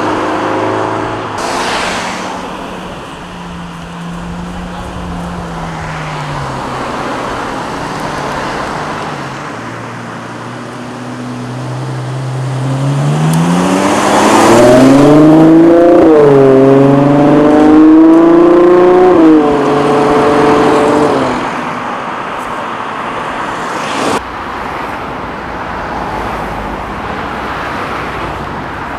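Performance car engines and exhausts as cars drive off. Around the middle one car accelerates hard, its engine note climbing steeply and dropping back at two upshifts; this is the loudest part, and it then fades away. A single sharp crack comes about three quarters of the way through.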